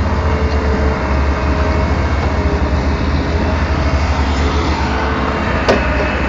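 Daewoo Solar 280 LC-III tracked excavator's diesel engine running steadily with a deep, low rumble. A single sharp knock comes near the end.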